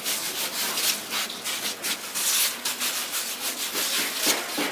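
Plastic-gloved hands rolling a rope of twisted-doughnut dough back and forth on a flour-dusted wooden board: repeated dry rubbing and swishing strokes.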